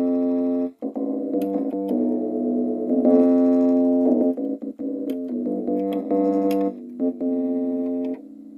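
Instrumental intro on electric piano or synthesizer keys: sustained chords and notes that change every half second or so, with a brief break just under a second in.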